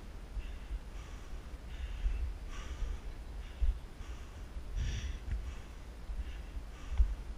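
A hiker panting in quick, regular breaths from the exertion of climbing steep stone stairs, close to the microphone of a head-mounted camera, over a low rumble with a few dull thumps.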